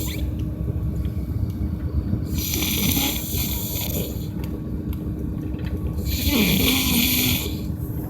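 A man snoring like crazy in his sleep: two long snores about three and a half seconds apart, over a steady low hum.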